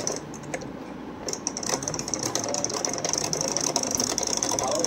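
Mini sewing machine running, its needle mechanism making a fast, even clatter that starts about a second in after a few light clicks.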